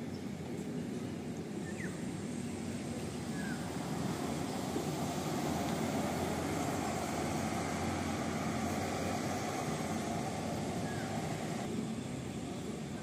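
A MAN double-decker bus drives past, its engine and road noise swelling about four seconds in, staying loudest through the middle and easing off near the end.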